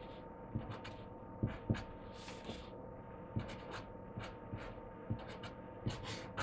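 Marker pen writing on paper: faint short scratching strokes and light taps at uneven intervals, over a steady low hum.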